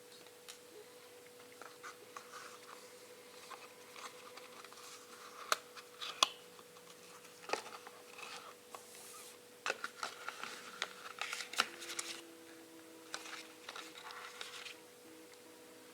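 Close-up handling sounds from a smartphone unboxing: scattered light taps and clicks with short stretches of soft rustling and crinkling of packaging, the sharpest clicks coming between about five and twelve seconds in.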